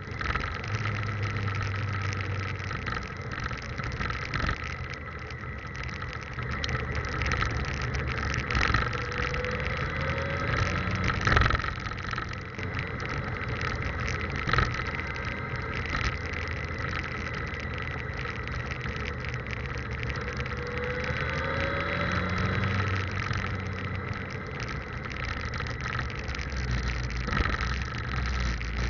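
Motorcycle engine running on the move, heard through a cheap action camera's poor built-in audio as a low rumble under steady noise and a thin whine. The engine note rises twice, and there are a few sharp knocks, the loudest about a third of the way in.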